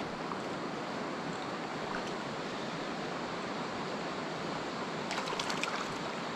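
Mountain stream water rushing steadily over rocks. A few faint clicks come about five seconds in.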